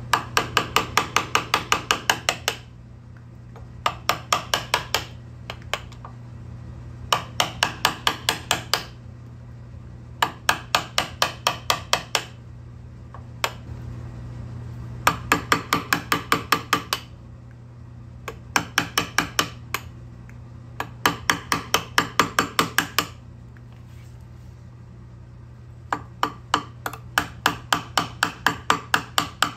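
Wood chisel being tapped into walnut with fast, light taps, about ten a second, in bursts of one to two seconds separated by short pauses.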